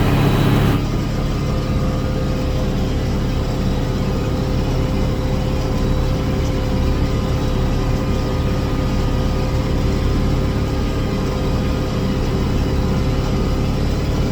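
International Harvester 1086 tractor's turbocharged six-cylinder diesel running steadily under load, driving a round baler, with a steady whine over the engine note. Just under a second in the sound turns slightly quieter and duller.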